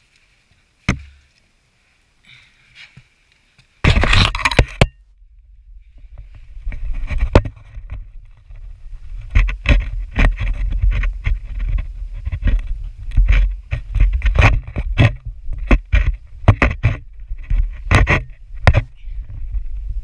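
Handheld GoPro and its pole knocking and scraping against the boulder as the climber scrambles up, over a steady low rumble of handling and wind on the microphone. A sharp click about a second in and a loud rustling burst around four seconds come first, then a run of irregular knocks.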